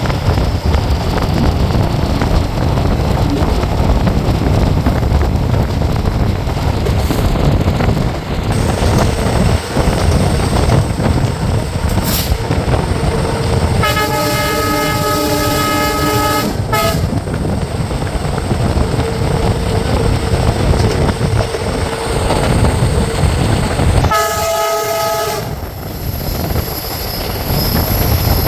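WDP4 diesel locomotive's horn sounding twice, close by: a blast of about two and a half seconds around the middle, with a short extra toot just after it, and a shorter blast of about a second and a half some ten seconds later. Under it runs the steady running noise of the moving train.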